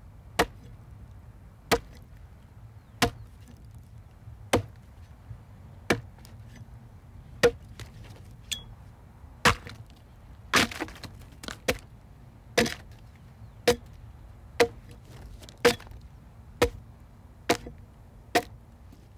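A bladed hand tool chops into a naturally curved log as it is hand-hewn into boat timber. Single strikes come about one every second and a half at first, then quicker and sometimes doubled from about halfway.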